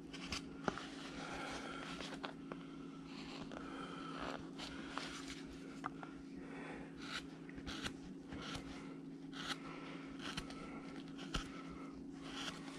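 Hand gouge cutting into a small wooden carving: faint, irregular slicing and scraping strokes with small clicks as chips come away, over a low steady hum.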